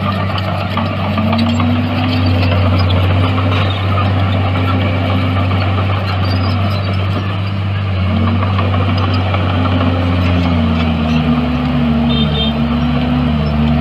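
Heavy diesel engine of a Komatsu D51PX bulldozer running steadily, its pitch dipping briefly and recovering several times as it takes load. A second engine note joins about eight seconds in.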